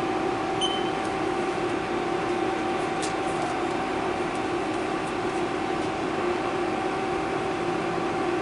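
Steady hum of an idle Haas CNC lathe with its spindle stopped, holding a constant tone, with a few faint clicks about three and five seconds in.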